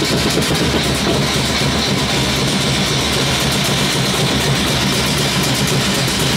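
Loud, fast drumming with a dense, unbroken beat.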